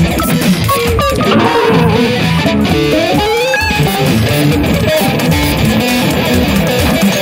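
Instrumental soundtrack music led by electric guitar over a low bass line, with notes sliding upward about three seconds in.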